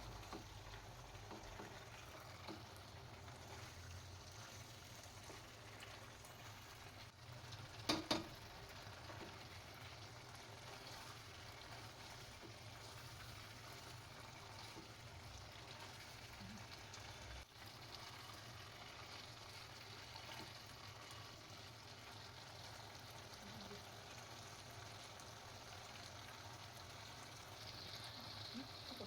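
Chicken roast cooking in a pan on the stove, a faint steady sizzle, with a sharp double knock about eight seconds in.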